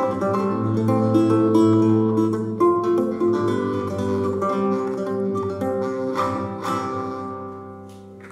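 Solo acoustic guitar playing the closing bars of a song, with no voice; the notes ring on and die away toward the end.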